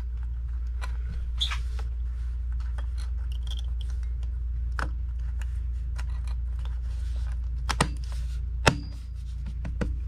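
The aluminium RAM access cover of a 2019 27-inch iMac being set back over the memory bay and pressed into place: light metal scrapes and small clicks, with a couple of sharper clicks a little before the end, over a steady low hum.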